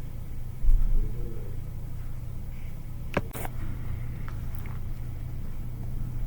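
A steady low hum, with a low thump about a second in and a sharp click a little after three seconds.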